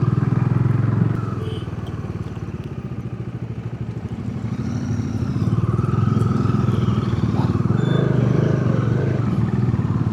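Motorcycle engine running under way. It eases off about a second in and picks up again around five to six seconds in.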